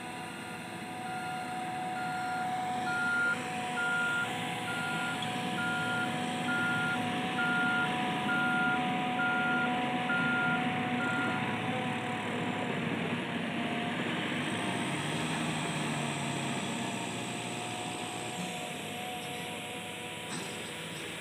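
A heavy vehicle's reversing alarm beeping at an even pace, a little under two beeps a second, stopping about halfway through, over the steady running of heavy-machinery engines.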